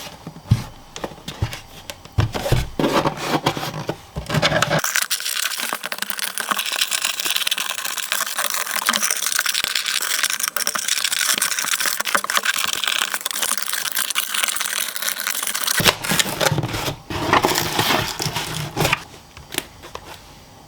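Box packaging being handled and opened by hand: sharp clicks and scrapes, then a long stretch of crinkling and crackling like plastic wrap or paper, then more clicks and handling near the end.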